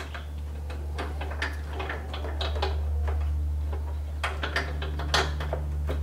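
Irregular metal clicks and light rattles as a lock is worked into a 1UP USA bike rack's hitch mount, with a couple of sharper clicks near the end, over a steady low hum.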